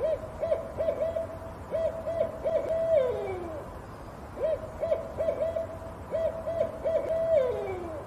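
An owl hooting in two phrases, each a quick run of short hoots that ends in a longer hoot falling away in pitch.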